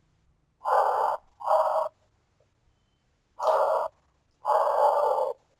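A person crying: four drawn-out sobs, each lasting between half a second and a second, with short pauses between them.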